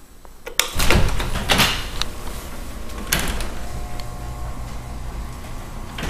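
Electric garage door opener raising a garage door: about half a second in the door starts moving with a loud jolt. It rattles up its tracks with a few knocks, and a steady motor whine comes in partway through.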